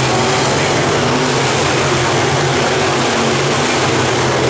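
A field of dirt-track race cars with their engines running hard around the track: a loud, steady, unbroken engine noise from several cars at once.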